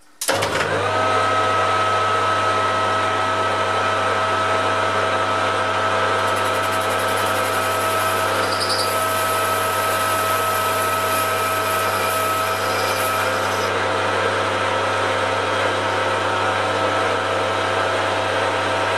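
Metal lathe switched on, then running steadily with a low hum and a steady whine while a small boring bar bores out an inch-and-a-half bush held in a four-jaw chuck.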